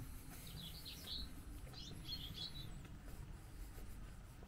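A songbird calling in two short phrases of chirps, one about half a second in and one about two seconds in, over a low steady rumble.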